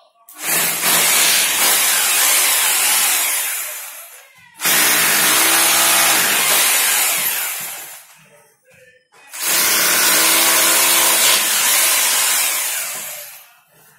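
Corded hammer drill boring into a plastered wall in three long bursts of a few seconds each, the noise tailing off at the end of each burst before the next begins.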